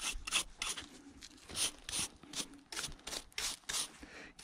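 Stiff brush scrubbing caked sand and rust off a corroded WWII MP40 submachine gun: a quick run of short rasping strokes, two or three a second.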